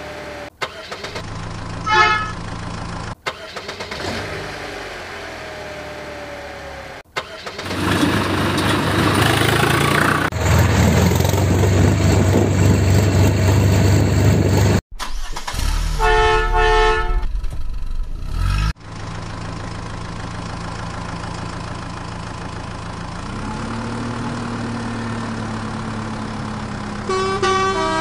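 Edited truck sound effects joined by abrupt cuts: an engine running loudly through the middle, a run of short horn honks about two-thirds of the way in, and an engine note that rises and then slowly sinks near the end.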